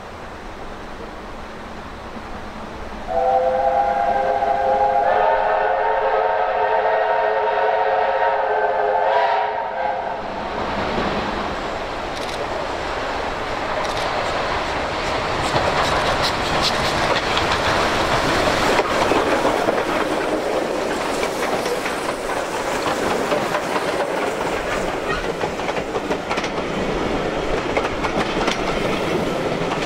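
USATC S160 2-8-0 steam locomotives sounding their whistles together in a long chord of several pitches, lasting about six seconds, with more tones joining a couple of seconds after it starts. The locomotives then pass close by working hard, and the carriages follow with the clickety-clack of wheels on rail joints.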